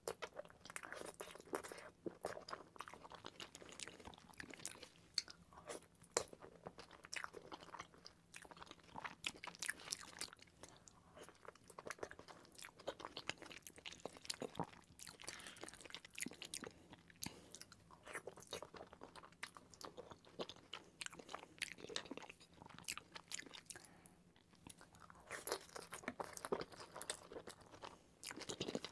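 A person chewing chili cheese fries close to the microphone: wet mouth sounds with many short, irregular clicks throughout.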